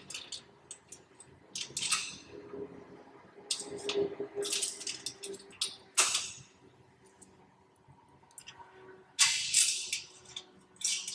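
Metal clicking and clinking of a wrench and nuts and lock washers being run onto the bolts of a steel sign bracket. It comes in short bursts with pauses, and the busiest stretch is near the end.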